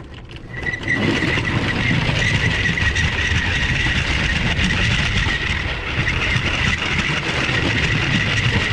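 Vintage LEGO train's small electric motor running, with its wheels rumbling and rattling on plastic track, heard close up from a camera riding on the train. It comes up to speed about a second in, then runs steadily with a high whine over the rumble.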